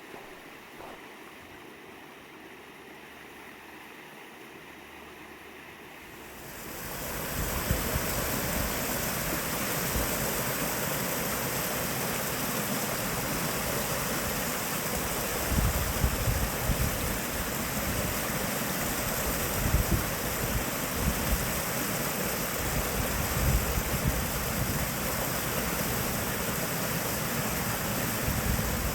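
Small cascading waterfall: a steady rush of falling water that swells to a much louder hiss about seven seconds in, with irregular low gusts of wind buffeting the microphone.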